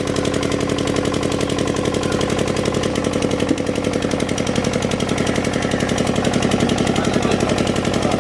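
Small engine running steadily with a rapid, even beat, of the kind that powers a pump draining the pond's water.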